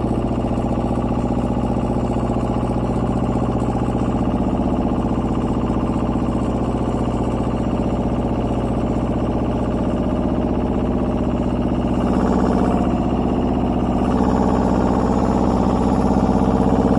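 Small tractor's engine running steadily under load while it pulls a soil-loosening implement through the ground, a little louder over the last few seconds.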